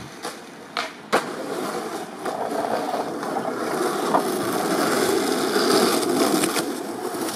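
Skateboard: a few sharp clacks in the first second, the loudest just over a second in as the board lands, then its wheels rolling on pavement, the rolling growing louder and easing off near the end.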